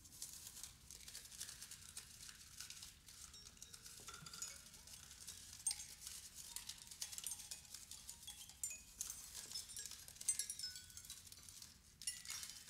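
Vibraphone prepared with crumpled aluminium foil on its bars, played softly with yarn mallets: a quiet, dense patter of short, high metallic taps and brief pitched pings.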